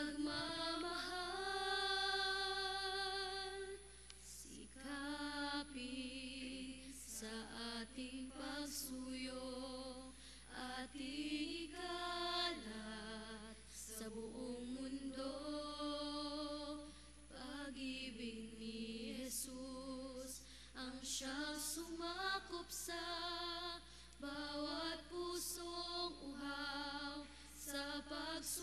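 A hymn sung at Mass during communion: a woman's voice with vibrato singing slow phrases with short breaks between them. A steady low electrical hum runs underneath.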